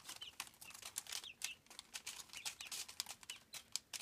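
Three-week-old chicks stepping, scratching and pecking on a newspaper-lined cardboard box floor: a stream of paper crinkles and sharp taps, with a few short peeps.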